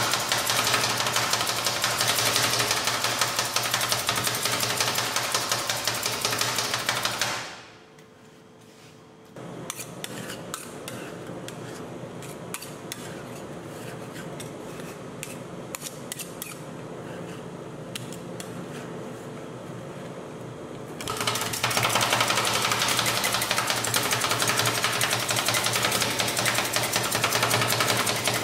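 Two metal spatulas chopping ice cream and crushed potato chips on a steel cold plate, a fast, even run of metal-on-metal taps. The chopping stops about seven seconds in, comes back softer for a stretch, then returns loud and fast about twenty seconds in.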